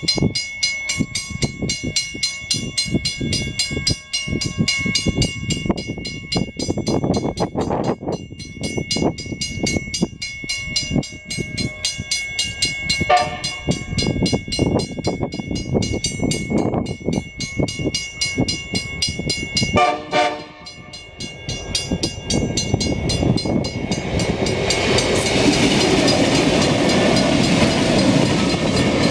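Level crossing bells ringing rapidly and evenly as a train approaches. The train's horn sounds two short blasts, about 13 seconds in and again about 20 seconds in. From about 24 seconds the loud, steady noise of the Pacific National diesel locomotives NR53, LDP009 and NR112 and their loaded steel wagons builds as they run through the crossing.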